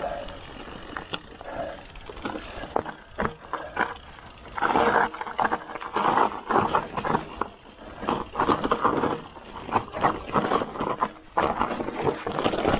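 Ragley Big Wig 29er mountain bike riding fast down a dirt trail: tyre rumble with constant rattling and knocking as the bike goes over bumps and roots, and rushing noise that comes and goes in loud surges.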